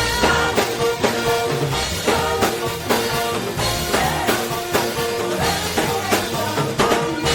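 Live gospel band music with a steady drum-kit beat under held chord tones.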